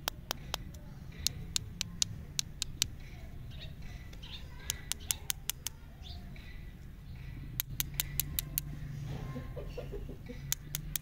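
Birds chirping, with short runs of sharp, evenly spaced clicks, about four to six a second, coming several times over a steady low hum.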